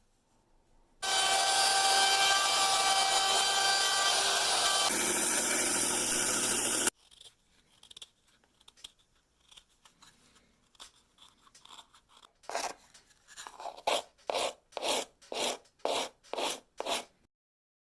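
A power tool runs steadily on wood for about six seconds, changes pitch partway, then stops suddenly. After a pause with faint handling sounds, about ten back-and-forth hand strokes rasp on the wood, roughly two a second, while the hole is carved out and the piece shaped.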